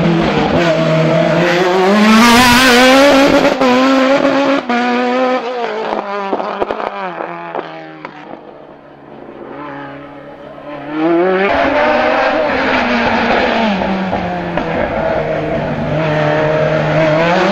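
Sport prototype race car's engine revving hard, its pitch climbing and falling again and again as the car accelerates and lifts between the cone chicanes. Around the middle it sinks to a faint distant drone for a few seconds, then comes back loud and close.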